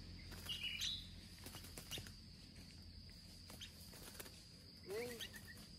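Faint bird sounds from a black-crested bulbul at a trap cage: light scattered clicks and taps, a brief high chirp about half a second in, and a short call near the end.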